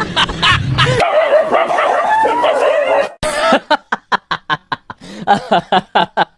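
A dog yelping and whining, then a run of laughter in short, evenly spaced 'ha' pulses, about four a second.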